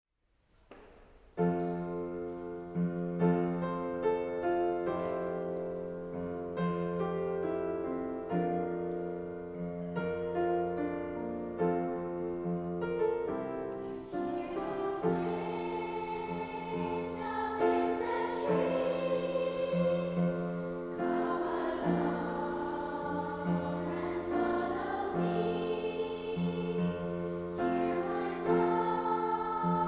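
Piano introduction of evenly struck chords, joined about halfway through by a children's choir singing with the piano accompaniment.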